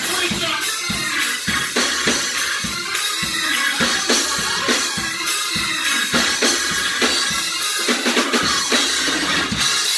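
Live gospel praise band playing, a drum kit keeping a steady beat with bass drum and snare under the other instruments.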